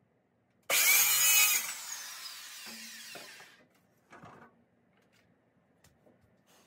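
Handheld circular saw starting with a sudden loud burst and cutting briefly through a wooden board, then whining down as the blade spins to a stop over a couple of seconds. A shorter thump follows a little after four seconds in.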